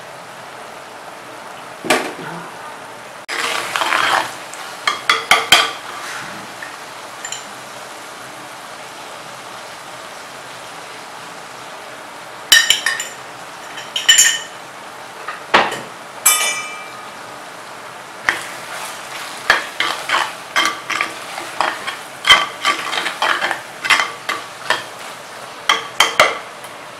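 A metal ladle scraping and clinking against an earthenware pot as shallots, garlic and masala are stirred while frying, over a steady sizzle. The clatter comes in bunches of quick knocks with a few short rings, and the middle stretch is mostly just sizzling.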